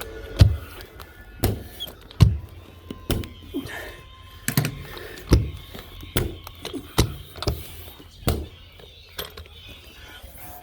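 Irregular knocks and thumps from carpet-laying work, about one or two a second, some sharp and some dull.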